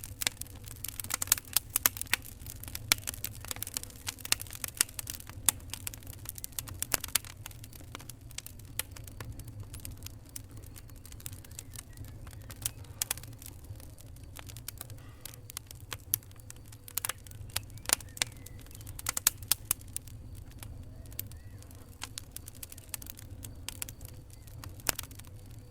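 Wood fire crackling: irregular sharp pops and snaps, busiest in the first seven seconds and again around 17 to 20 seconds in, over a steady low rumble of the flames.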